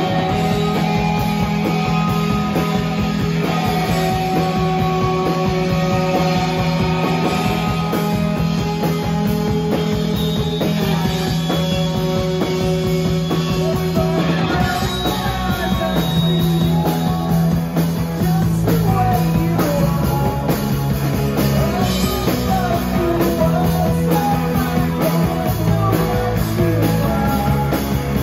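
Live rock band playing: electric guitars over a drum kit, loud and continuous. Held, ringing chords fill the first half, and more moving melody lines join from about halfway through.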